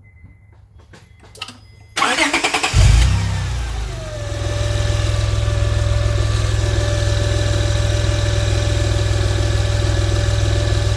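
A 2007 Honda Accord's V6 is cranked by the starter about two seconds in, catches and flares, then settles to a steady idle. Once it idles, a steady whine comes from the serpentine belt area, falling in pitch as the revs drop and then holding.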